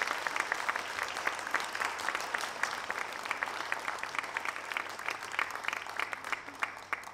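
Audience applauding: many hands clapping densely, thinning out and fading near the end.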